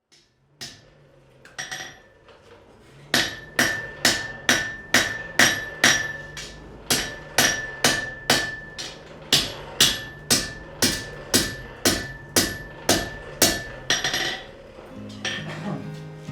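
Blacksmith's hammer striking metal on an anvil, each blow ringing bright. A few scattered blows come first, then a steady run of about two blows a second from about three seconds in until near the end.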